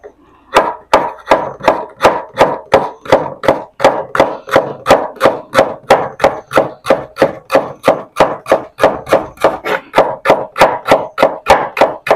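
Knife slicing lemongrass stalks into thin rings on a wooden cutting board: steady, even knocks of the blade on the board, about three to four a second, starting about half a second in.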